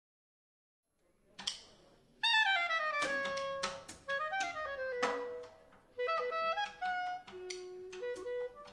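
Background music starting about a second in: a melody of pitched notes, some sliding down in pitch, over sharp percussive hits.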